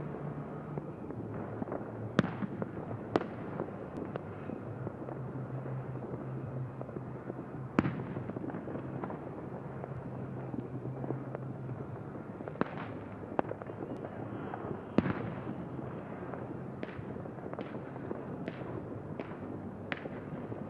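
Fireworks display: about a dozen sharp bangs of bursting fireworks at irregular intervals, clustering in the last few seconds, over a steady rushing background noise with a low steady hum.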